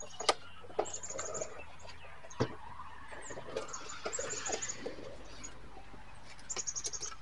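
A few sharp plastic clicks and light handling noise as wiring connectors are unclipped inside a pickup-truck door, with faint bird calls in the background.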